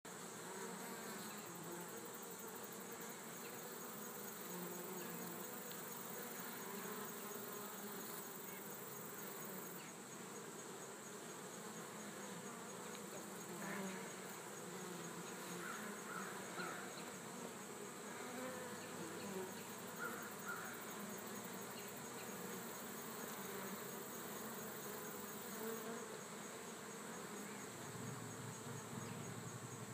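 Honey bees buzzing at a hive entrance: a steady hum of many wings that wavers as bees fly in and out close by.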